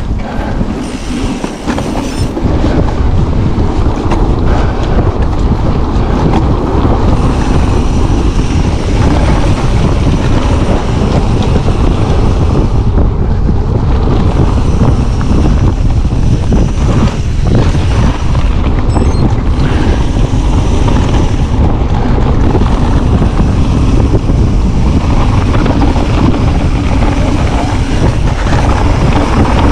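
Loud, steady rush of wind on an action camera's microphone, mixed with tyre and trail noise from an e-mountain bike riding a dirt trail.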